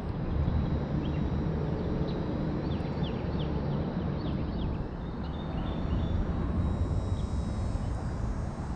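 Steady low rumble of wind buffeting the microphone, with faint short high chirps of birds scattered through it.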